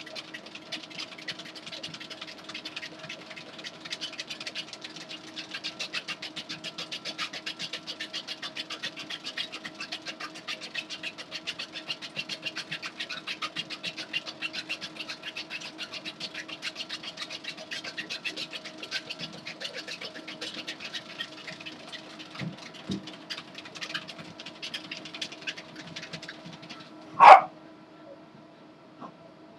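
A Jack Russell terrier's paws pattering fast and evenly on a running treadmill belt, about five steps a second, over the treadmill motor's steady hum. Near the end there is one loud short sound, and then the pattering stops while the hum goes on.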